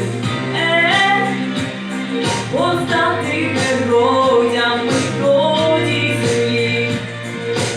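A girl's solo pop vocal singing a melody over an instrumental backing track with a steady bass line and a regular beat.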